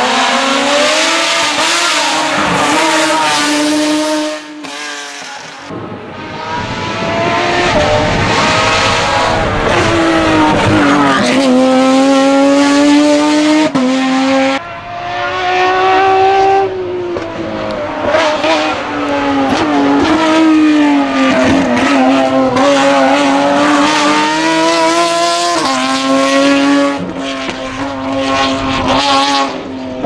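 Renault Megane Trophy's naturally aspirated Nissan VQ35 3.5-litre V6 race engine at full throttle on a hill-climb. The revs climb and drop sharply at each quick upshift, with several lifts off the throttle and downshifts for corners.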